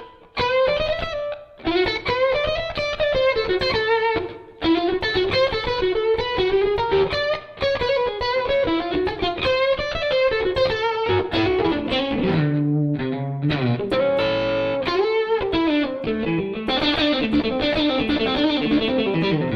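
Electric guitar, a Stratocaster through a single-ended Flex15 amp and 2x12 cabinet, playing blues lead lines: quick picked single-note phrases with short pauses, held and bent notes about two-thirds of the way through, then a busier run near the end, with a light overdrive.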